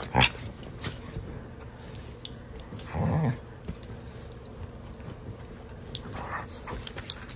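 Two dogs play-fighting on a bed: a short low growl about three seconds in, amid scuffling and clicks from their wrestling on the bedding.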